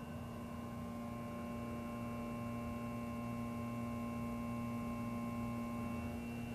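Steady electrical hum made of several held tones, the lowest the strongest; one of the middle tones drops out near the end.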